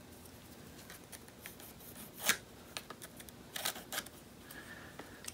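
Pencil marking a line on a wooden chair frame against a small steel rule: a few short, faint scratches and scrapes, the clearest about two seconds in and again around three and a half to four seconds.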